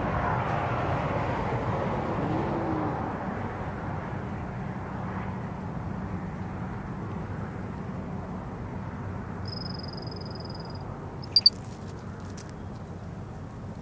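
Highway traffic: a passing vehicle fades away over the first few seconds, leaving a steady low rumble of road noise. About ten seconds in, a high thin whistle-like call lasts about a second, and shortly after come two sharp knocks close to the microphone.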